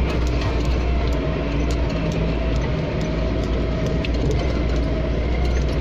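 4x4 off-road vehicle's engine running steadily while driving on a rough dirt track, with frequent light rattles and clicks from the vehicle.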